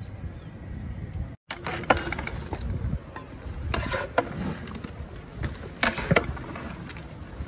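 A long metal paddle scraping and knocking against a large aluminium cooking pot as a big batch of biryani rice is stirred: irregular sharp clicks and scrapes over a low rumble. The sound cuts out for a moment about a second and a half in.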